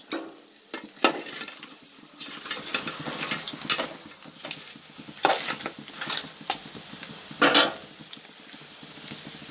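A spoon scraping and clinking against an aluminium pot as crabs coated in spice powder and salt are stirred, in irregular strokes with two longer scrapes in the second half, over a low sizzle.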